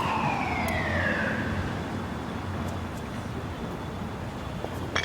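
Emergency-vehicle siren wailing, its pitch gliding down over the first second or so, over a low, steady rumble of street traffic.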